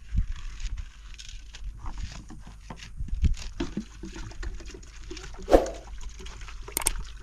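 Plastic jerrycan and jug being handled, giving scattered light clicks and knocks with one sharper knock about five and a half seconds in, over a low steady rumble.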